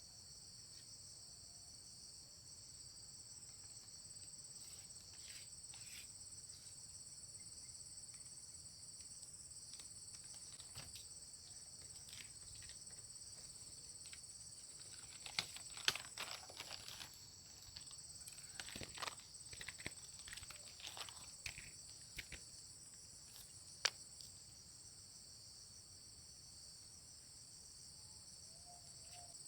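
Steady high-pitched insect chorus of crickets, with a spell of rustling and a few sharp clicks in the middle part.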